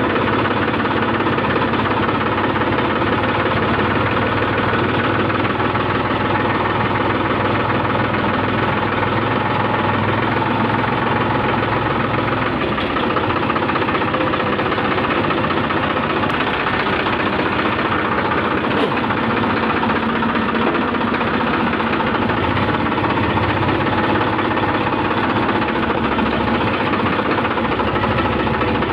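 Diesel tractor engine running steadily while the tractor is driven slowly along a muddy farm track, heard from the driver's seat.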